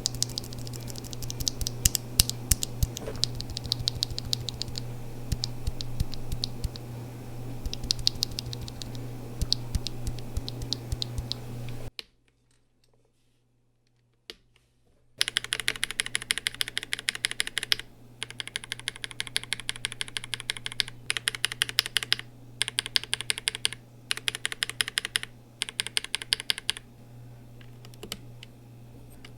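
Mechanical keyboard with linear switches, JWK blacks set against Alpacas and Durock linears, typed in quick runs of keystrokes. There are two separate typing runs with a brief silent break between them; the second run sounds brighter and comes in short bursts.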